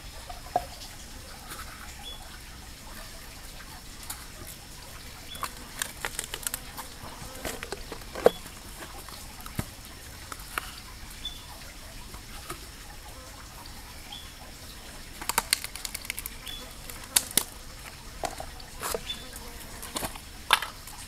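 Forest background of a steady high insect drone with a short high chirp repeating about once a second, broken by clusters of sharp clicks and taps.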